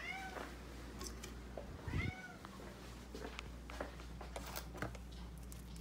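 Domestic cat meowing twice, about two seconds apart, each a short arching cry, with scattered light clicks in between.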